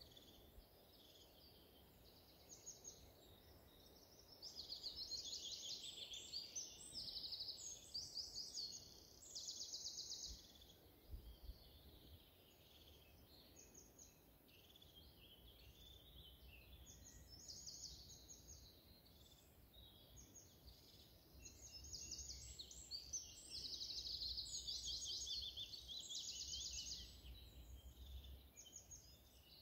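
Faint songbird chorus: several birds singing in bouts of fast, rapidly repeated trills and chirps. A low rumble comes and goes beneath it.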